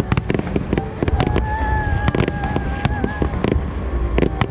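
Fireworks banging and crackling in quick, irregular succession, mixed with music, including a held tone for about two seconds in the middle.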